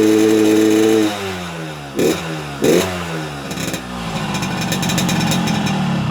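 Yamaha RX-King two-stroke single-cylinder motorcycle engine revving through an opened-up ('bobokan') exhaust. A held rev drops after about a second, two quick throttle blips follow, then the revs climb roughly toward the end.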